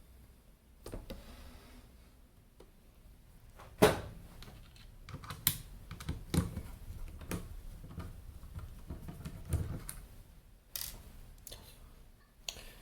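Irregular clicks and knocks of hand tools and metal parts as the case of an avionics display unit is worked open, the loudest knock about four seconds in.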